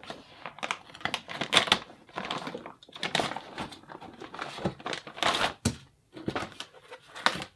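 Clear plastic wrapping crinkling and cardboard filament boxes rustling and knocking against each other as a boxed 3D-printer filament spool is handled and pulled from a shipping carton. The noises come in irregular bursts.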